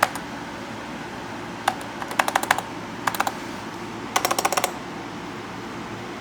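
Zenith SupersPort 286 laptop keyboard keys being pressed in a few short bursts of clicks, the last a quick run of about a dozen presses.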